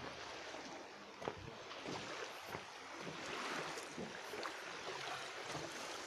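Steady wind and sea noise over open water, swelling a little midway, with a few light knocks.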